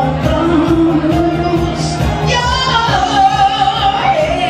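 A singer performing live into a handheld microphone over a dance-pop backing track with a steady beat, holding a long note with vibrato in the second half.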